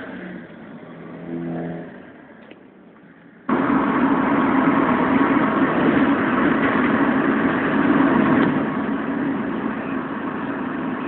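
Van driving on a highway, heard from inside the cab: engine and road noise, fairly quiet at first with a brief pitched tone about a second and a half in. About three and a half seconds in it turns suddenly into a much louder, steady rush of road and wind noise.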